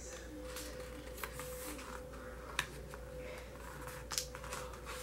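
Paper rustling and a few light clicks as hands handle and press flat the pages of a CD album's photobook.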